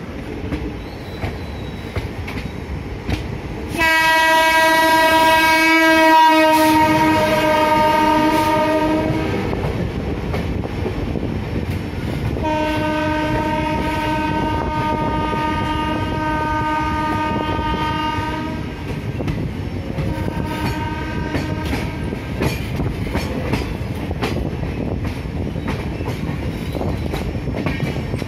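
Locomotive horn blown three times over the running noise of a moving train: a loud, long blast about four seconds in, a second long blast a few seconds later, then a short fainter one. Rail joints click steadily underneath.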